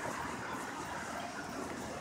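The Cummins ISB 6.7-litre diesel engine of a Blue Bird Vision school bus running steadily, heard as an even hum mixed with hiss.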